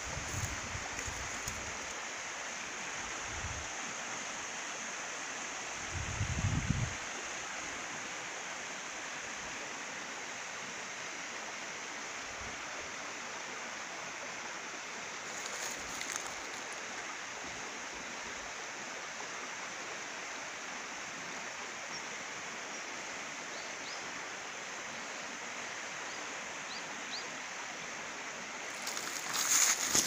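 Shallow stream flowing steadily over a bed of fallen leaves. A low thump comes about six seconds in, and a louder rustling noise starts near the end.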